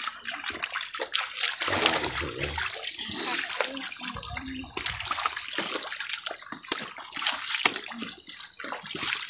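Shallow muddy water sloshing and splashing as round mesh sieve baskets are swished and scooped through it, with scattered small splashes and clicks.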